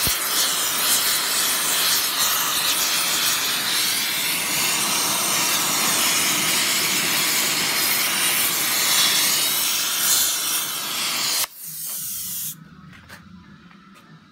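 Oxy-fuel torch flame hissing steadily while it heats a rusted bolt to free it. The hiss stops abruptly near the end.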